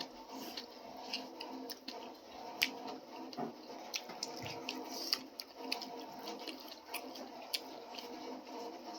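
Eating sounds up close: irregular wet clicks and smacks of chewing and lips, a few a second, over a faint steady background hum.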